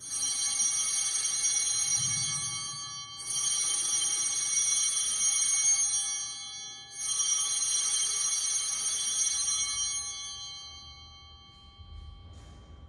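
Altar bells rung three times at the elevation of the host after the consecration: each ring is a bright jangle of many high overlapping tones that sounds on and fades, the third dying away over several seconds.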